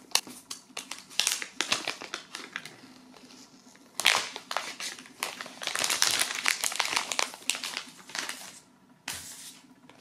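Clear plastic wrapping crinkling and crackling as it is peeled and pulled off a phone box. The crackles come in quick runs, with one sharp crackle about four seconds in and the densest crinkling in the middle.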